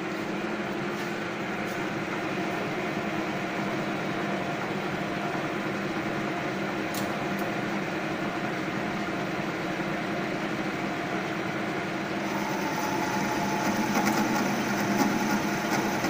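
Centre lathe running at 550 rpm, a steady machine hum with several steady tones. About three-quarters of the way through a higher, hissing layer joins and the sound grows a little louder as the tool begins cutting the mild steel bar at a 0.23 mm feed.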